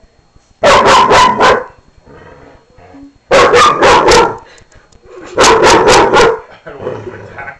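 A dog barking loudly at his own reflection in a mirror, which he takes for another dog: three quick volleys of about four sharp barks each, a couple of seconds apart.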